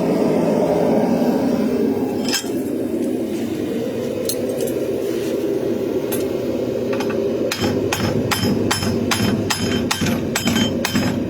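Hammer blows ringing on steel as a forged knife blade is tapped over to centre it on its integral bolster: one blow a couple of seconds in, then a steady run of about three strikes a second from about seven seconds on. Under it, the steady noise of the forge running.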